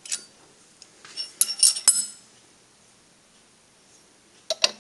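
Sharp metallic clinks and clicks of steel hand tools, such as a spanner, being handled and set down on a milling machine's table: one right at the start, a quick cluster between about one and two seconds in, and two more near the end.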